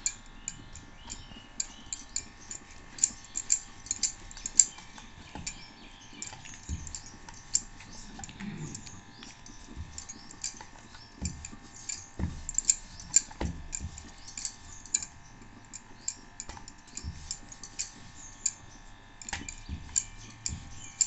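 Wooden rolling pin rolling out a folded paratha on a wooden board, with irregular clicks and knocks throughout over a faint steady hum.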